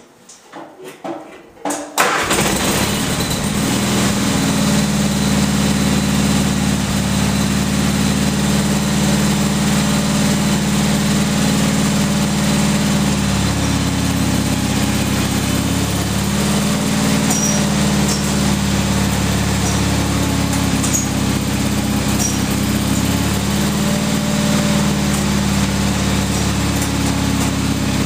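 Gravely tractor's engine cold-started: after a few short knocks it catches about two seconds in and settles into a steady run, its note shifting slightly a couple of times.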